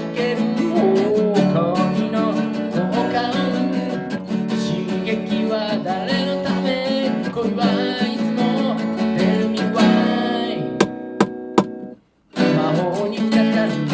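Instrumental section of a pop song with strummed acoustic guitar and a moving melody. Near the end the band plays three short, sharp hits, stops dead for about half a second, then starts up again.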